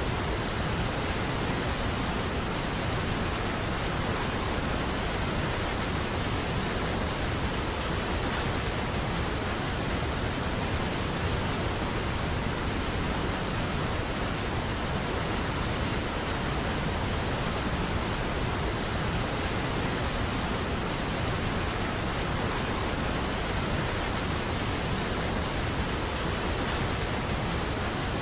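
Waterfall heard up close: a steady, even rush of falling water.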